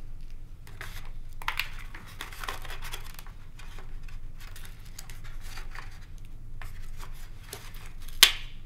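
Hands handling servo wires and the receiver inside a foam RC jet's fuselage: scratchy rustling and rubbing in short spells, with one sharp click near the end.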